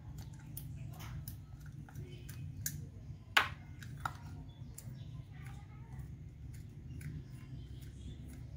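Small metal clicks and taps of a Suzuki F6A carburetor's parts being handled by hand at the diaphragm cover, with one sharper click about three and a half seconds in, over a steady low hum.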